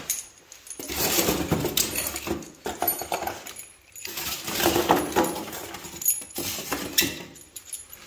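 Washing machine packaging being handled: a plastic wrapper rustling and polystyrene rubbing and squeaking in several bursts, with metal transit bolts clinking in the hand.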